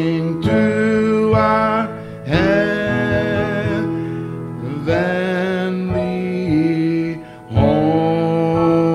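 A man singing the closing phrases of a gospel song in long, drawn-out notes with vibrato, over piano accompaniment.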